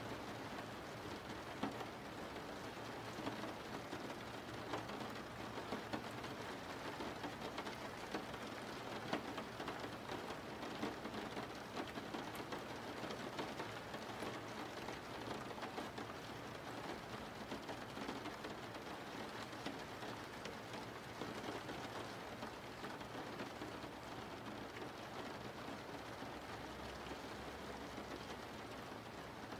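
Steady rain falling, an even hiss of many drops with scattered louder patters.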